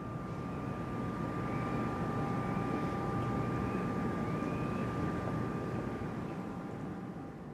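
A passing engine: a low rumble with a steady high whine over it, swelling over the first few seconds and easing toward the end.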